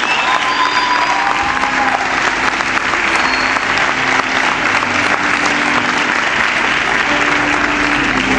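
Audience applauding: dense, steady clapping from a large crowd, thinning slightly near the end.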